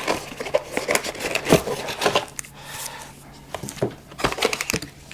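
Drone packaging and accessories being handled by hand: irregular clicks and light knocks of boxes and parts being moved about.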